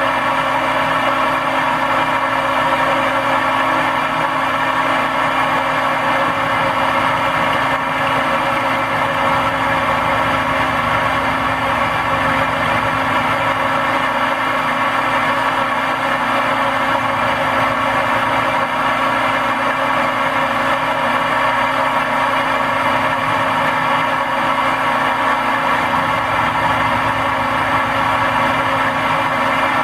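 Milling machine running steadily with a constant hum of motor and spindle while an end mill takes light facing passes on a bronze part.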